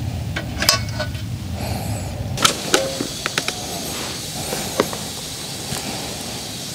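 Scattered light clicks and clinks of cooking utensils: metal tongs setting food on a wooden cutting board, then a spoon scooping cooked rice from a small electric rice cooker into a steel bowl. A low rumble runs under the first couple of seconds.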